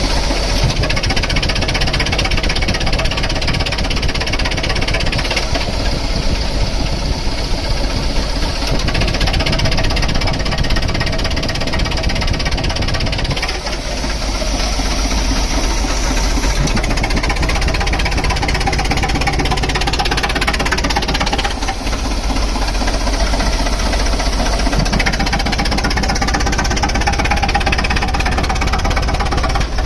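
A compressor's engine running steadily and loudly, with a rough mechanical rumble and brief dips in level twice.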